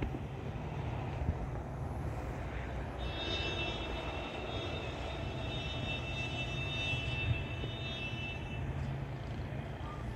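Aircraft engine noise: a steady low rumble, joined about three seconds in by a high whine of several steady tones that stops about a second and a half before the end.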